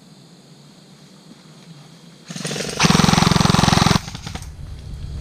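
An airsoft electric gun firing a full-auto burst close to the microphone, a rapid run of shots about three seconds in that lasts roughly a second, after low outdoor ambient noise.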